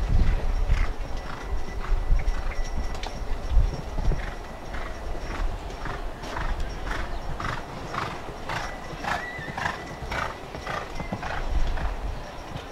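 A horse cantering on a sand arena: its hoofbeats and breaths come in a steady rhythm of about two a second, strongest in the second half.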